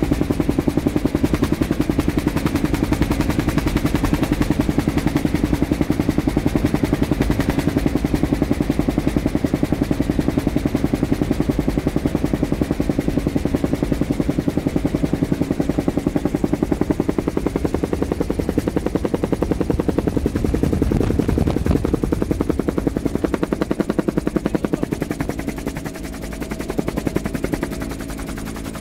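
Helicopter rotor chop and turbine engine heard from inside the cabin: a steady, rapid beating that eases slightly near the end.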